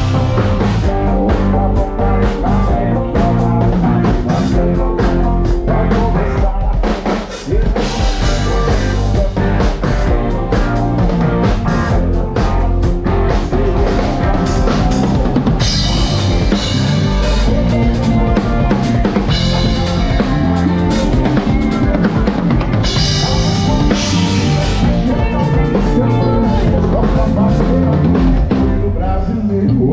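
Live band playing at full volume through a stage PA during a soundcheck: drum kit, electric guitar, bass guitar and keyboard together. The music dips briefly about seven seconds in.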